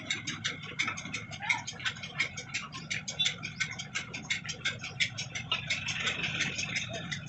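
A machine running: a rapid, even ticking of about eight ticks a second over a low, steady hum.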